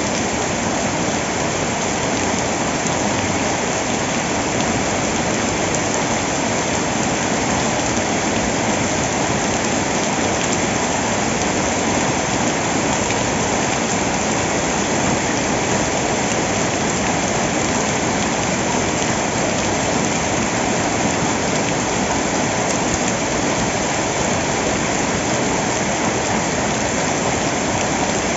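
Heavy storm rain pouring down steadily, an even hiss of water.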